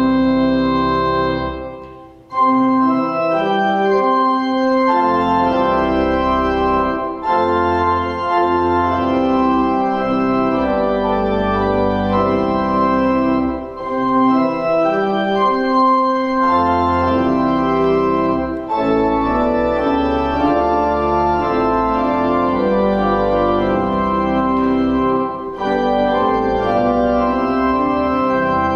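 Church organ playing a hymn in full sustained chords over a deep pedal bass. It breaks off briefly about two seconds in, then starts again.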